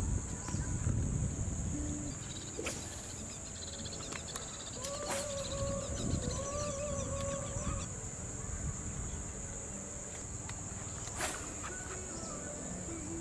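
Steady high-pitched drone of insects, crickets or cicadas, with gusts of wind rumbling on the microphone, strongest in the first two seconds and again around six seconds in. A faint wavering call sounds from about five to eight seconds in, and there are a few sharp clicks.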